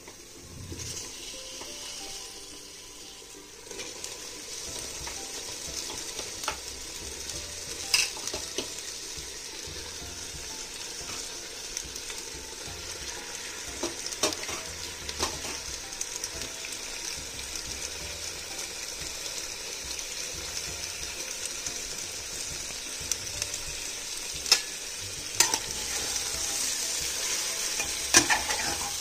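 Raw chicken pieces sizzling in hot oil and masala in a pressure cooker, the hiss building up after a few seconds. A steel spoon stirs them, clicking and scraping against the pot several times, with the sharpest clicks near the end.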